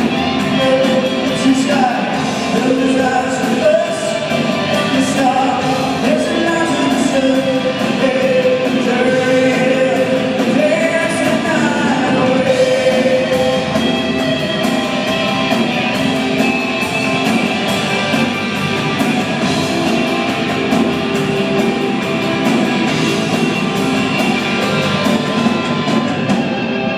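Live rock band playing with a singer, amplified through the PA in a large ice arena.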